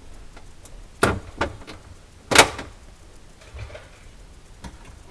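Three sharp knocks and clicks, the third the loudest, from hands working inside a refrigerator compartment while fitting a drain heater's wire along its plastic liner, with a faint tap near the end.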